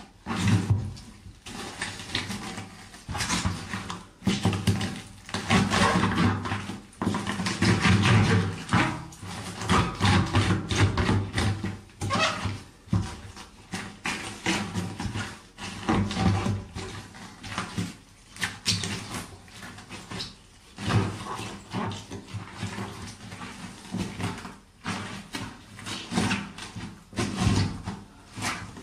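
Rubber boots treading and grinding on cabbage leaves and mashed food on a wet floor, crushing them in irregular, closely spaced steps.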